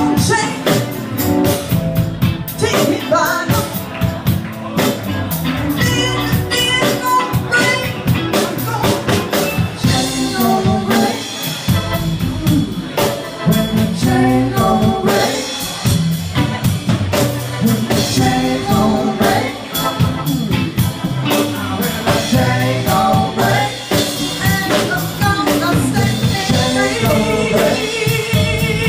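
Live band playing with electric guitar, bass guitar and drum kit behind a woman singing lead vocals.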